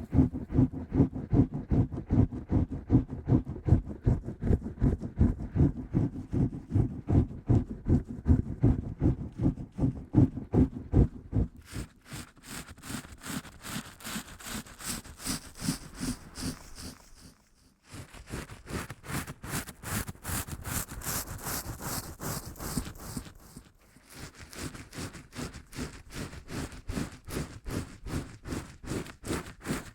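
Steady rhythmic tapping, about four strokes a second. For the first twelve seconds the strokes are dull, low knocks; after that they turn lighter, brighter and scratchier, with two brief pauses.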